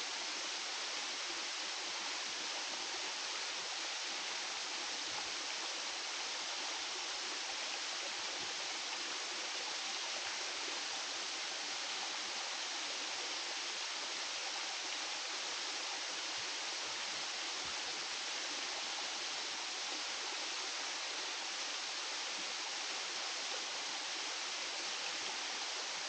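Steady rush of water flowing down a creek's cascades, an even hiss that holds level throughout.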